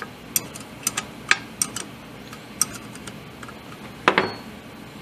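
Irregular sharp metallic clicks of a hand ratchet wrench working the 6 mm connecting-rod cap bolts on a Honda GCV160 engine, with a louder clatter of metal about four seconds in.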